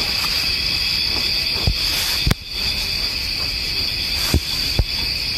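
A steady chorus of night insects, shrill and unbroken, with four sharp clicks or knocks. The loudest click comes a little over two seconds in and briefly drops the level.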